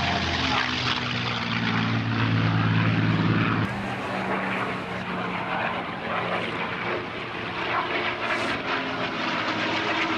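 P-51 Mustang's Merlin V-12 aero engine running loudly as the fighter flies past. The engine sound is strongest for the first few seconds, then drops abruptly and carries on fainter.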